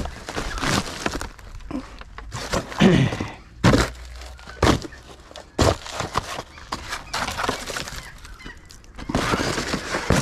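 Cardboard boxes being stamped flat and crushed by hand, with irregular cracks, crinkling and knocks against a plastic wheelie bin as the flattened cardboard is pushed in.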